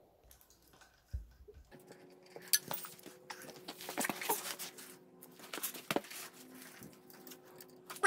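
Faint handling noises: irregular clicks, knocks and rustling over a steady low hum. A single thump comes a little over a second in.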